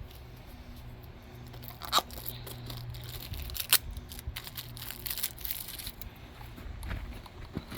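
Crinkling and rustling as oily hands are wiped clean, with two sharp clicks about two seconds and nearly four seconds in.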